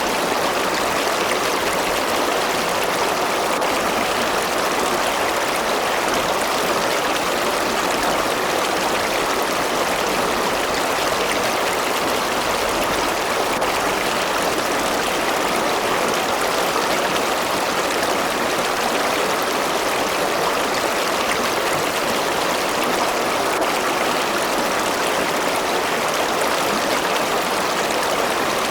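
River or stream water rushing and babbling steadily over rocks, a continuous even flow with no breaks.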